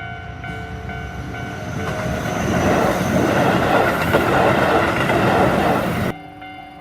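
Electric train running past, its rumbling rail noise building up and then cutting off suddenly near the end, with background music playing underneath.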